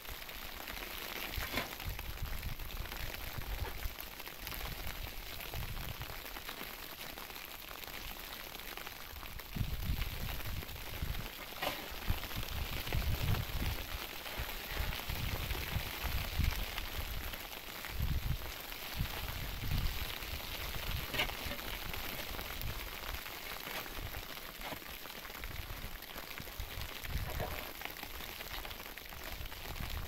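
Steady hiss of rain with gusts of wind buffeting the microphone, strongest about a third of the way in, and a few faint clicks.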